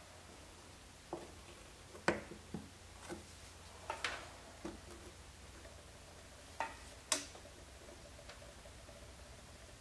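Irregular light clicks and taps, about nine of them, loudest about two seconds in and again about seven seconds in, as the hot tip of a handheld plastic welder is worked against a hard plastic headlight housing, over a faint steady hum.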